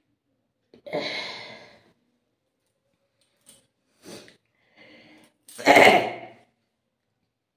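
A person sneezing, set off by green chilli: one sneeze about a second in, a few short sniffs and breaths, then the loudest sneeze near the end.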